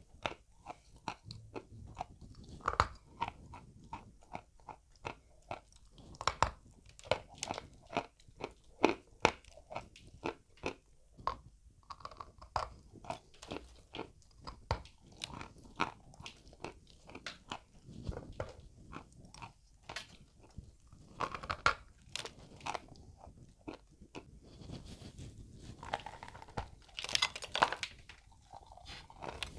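Close-up biting and chewing of dry, powdery white mineral lumps: a dense, uneven run of sharp dry crunches, with a louder burst of crunching near the end.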